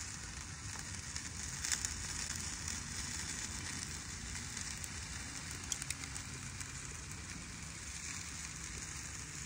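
Marinated chicken skewers sizzling over hot charcoal in a grill: a steady soft hiss with a few small crackles from the coals.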